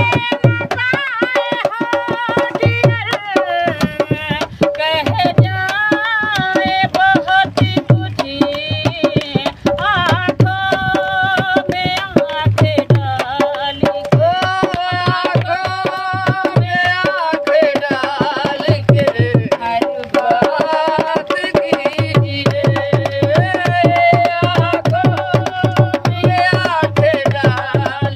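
Live folk singing accompanied by a hand-played dholak, the two-headed barrel drum, keeping a fast steady rhythm with deep bass strokes. The bass strokes drop out for a few seconds past the middle, then return.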